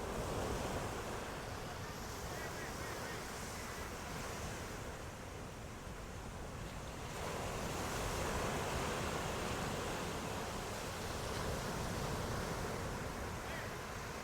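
Ocean waves breaking and washing up on shore, a steady surf that swells twice, about a second in and again from about halfway through, with wind on the microphone.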